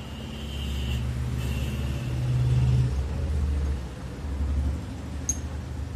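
Low rumble that swells to its loudest about halfway through and then fades, with a faint high whine in the first half and a single sharp click near the end.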